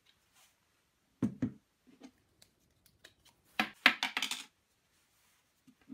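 Handling sounds of a camera and its battery on a table: a soft knock about a second in, a few light clicks, then a loud burst of plastic clicking and rattling about halfway through as the battery's plastic protective cover is pulled off.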